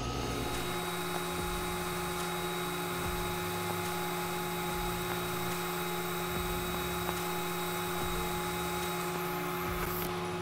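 A TIG welder's arc runs steadily as a bead is laid along a steel receiver seam, making a constant hiss with a low hum underneath. It cuts off about nine seconds in.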